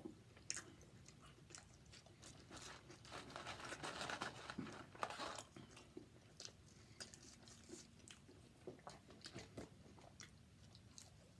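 Close-up mouth sounds of someone eating a fast-food burger meal: chewing, biting and crunching, with many small wet clicks and a louder crunching stretch from about three to five and a half seconds in.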